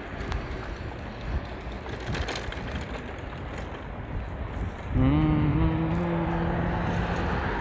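Wind and rolling noise on the microphone of a moving bicycle. About five seconds in, a louder steady low drone starts, rises briefly in pitch, then holds level until near the end.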